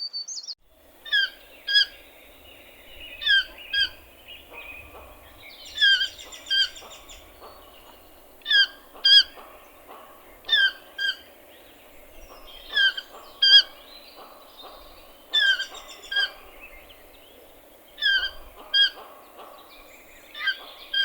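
Toucan calling: short, sharp down-slurred notes, mostly in pairs, with a pair about every two to two and a half seconds.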